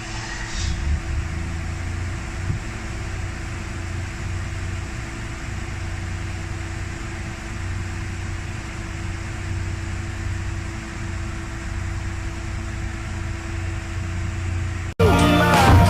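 Toyota Alphard running with a steady low hum, the engine idling after the new battery has been fitted.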